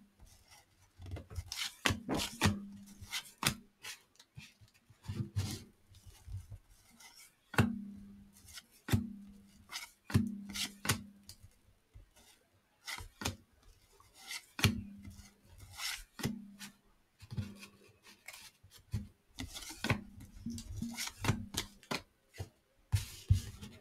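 Baseball trading cards being flipped through by hand, one card stock card sliding off the stack and onto the next in short rubbing strokes, about one every second at an uneven pace.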